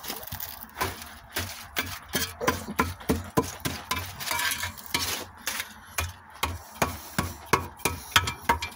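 A wooden stick knocking and scraping against a concrete hearth and the charred debris of a burnt-out LiPo battery, in quick, irregular strikes that get sharper towards the end. There is a brief hiss about four seconds in.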